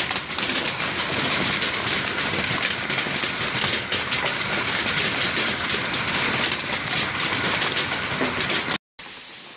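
Hail falling onto bare ground: a loud, steady clatter of many small hits. It cuts off abruptly shortly before the end.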